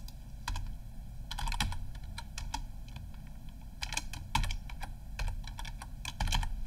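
Typing on a computer keyboard: short irregular bursts of keystrokes with brief pauses between them.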